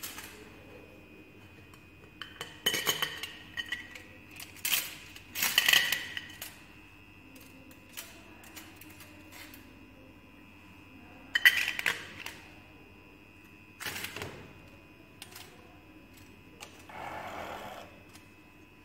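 Glass pipettes and a stainless-steel pipette canister clinking as a pipette is drawn out and test tubes are handled: a handful of sharp clinks with brief ringing, the loudest about eleven seconds in. A short scraping rustle comes near the end.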